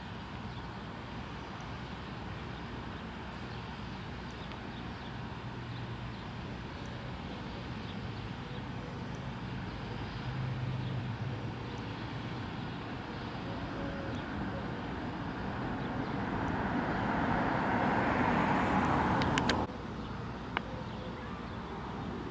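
Outdoor background noise with the rumble of a passing vehicle, which builds over several seconds and then cuts off suddenly about three seconds before the end.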